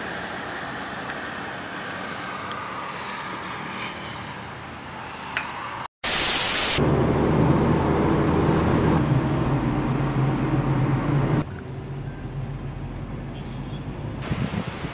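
A car driving on a road: steady engine and road noise with a low hum, loudest for about five seconds around the middle, then quieter. Before it comes a brief loud burst of hiss about six seconds in, and the opening seconds hold only a faint, steady outdoor hiss.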